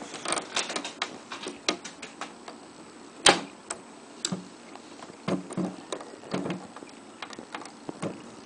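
Plastic Lego bricks clicking and knocking as the broken flipper of a Lego pinball machine is handled and pressed back together, with one sharp snap about three seconds in.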